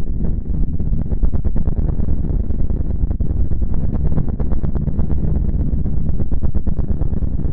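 Sonified space data presented as the sound of the planet Mercury, electromagnetic or plasma waves converted into audible sound: a steady deep rumble with dense crackling over it.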